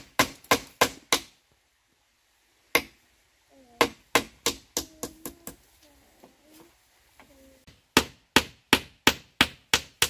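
Runs of sharp blows from a hand tool, about three to four strikes a second, broken by short pauses and a single stroke in between.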